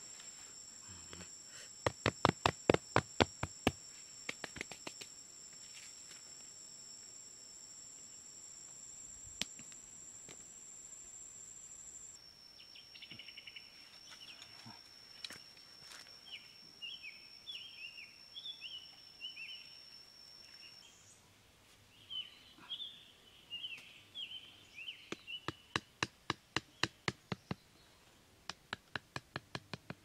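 Two quick runs of sharp knocks, about four or five a second, from a large knife chopping, one near the start and one near the end. Between them a steady high insect whine runs and stops about two-thirds through, and birds chirp in the middle.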